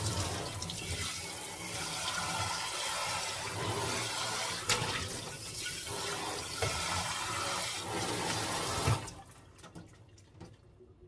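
Faucet spray hissing onto a stainless steel pot in a stainless steel sink as the pot is rinsed, with a few sharp metallic knocks as it is turned. The water shuts off about nine seconds in, leaving faint drips and small clinks.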